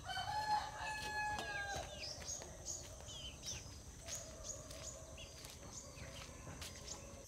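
A rooster crows once, one long call over the first two seconds. Small birds then chirp rapidly in short high falling notes, over faint village yard ambience.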